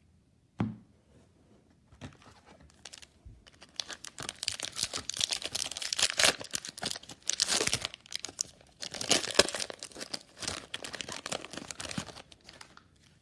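Foil wrapper of a trading-card pack being torn open and crinkled: one sharp knock about half a second in, then about ten seconds of tearing and crackling.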